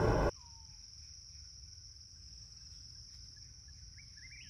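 Crickets chirping steadily at a high pitch. A loud burst of car cabin noise opens and cuts off abruptly about a third of a second in.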